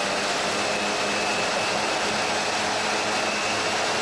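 High-expansion foam generator discharging: a steady, even fan-like rush of air with a faint low hum, unchanging throughout.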